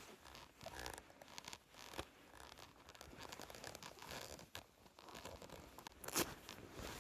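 Rustling, scraping and scattered clicks from an angler handling gear just after netting a carp, with one louder scrape about six seconds in.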